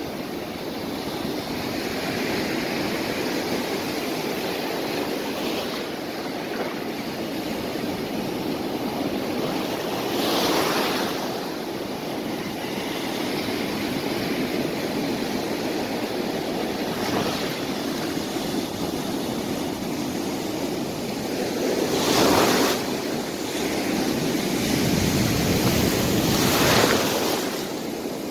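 Small sea surf breaking and foam washing up and back over a sandy beach, a steady rushing wash with three louder surges: about ten seconds in, just past twenty seconds, and near the end.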